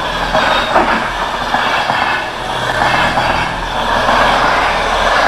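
Passenger train passing at speed: a steady, loud rushing of wheels on the rails.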